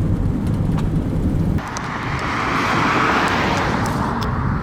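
Wind and road rumble inside a moving car whose windshield has been smashed out by hail. About a second and a half in, the low rumble drops away suddenly and a hiss swells and fades, with a few sharp ticks.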